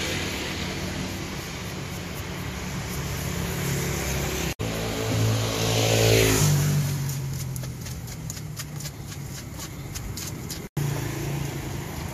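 Street traffic passing close by, one vehicle going past about five seconds in with its engine note falling away. After it, a quick run of light knife taps, about four a second, as a green papaya is hacked for shredding. The sound cuts out for an instant twice.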